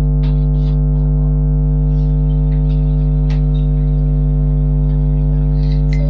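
A loud, steady electrical mains hum with several steady overtones, with faint short clicks scattered over it.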